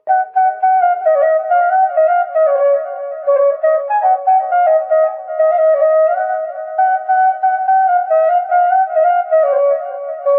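A sad instrumental ringtone tune: a single melody line with no drums or bass, moving from note to note in repeating phrases.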